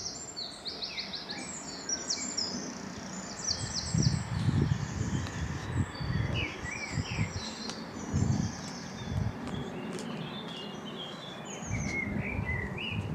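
Several songbirds singing: repeated trills and chirped phrases throughout. Irregular low thumps of footsteps on a dirt path run through the middle.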